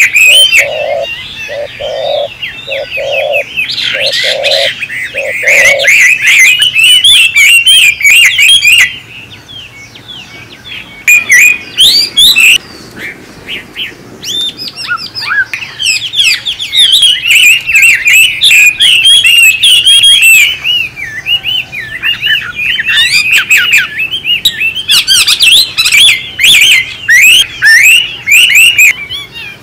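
Many birds chirping and chattering busily and loudly, call over call, easing off for a few seconds around the middle. During the first six seconds a run of about eight low, evenly spaced notes sounds under the chatter.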